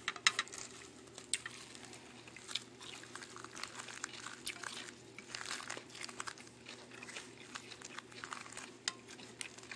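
Soft, irregular crunching, crinkling and small clicks of a fresh spring roll of crisp lettuce and herbs in rice paper being chewed and handled, over a faint steady hum.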